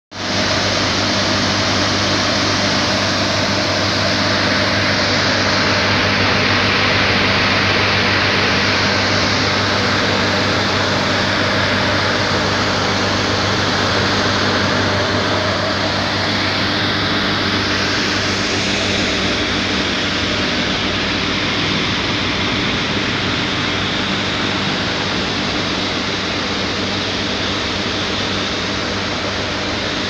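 Boiler-room machinery running: a loud, even roar over a steady low hum, with motor-driven water pumps on the boiler's piping.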